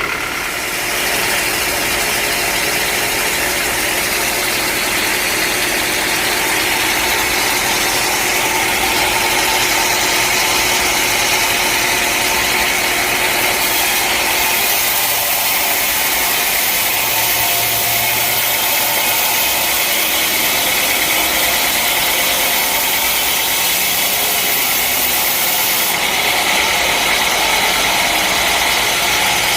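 Engine-driven sawmill machinery running steadily with a loud, even mechanical noise. A high hiss joins about halfway through and stops a few seconds before the end.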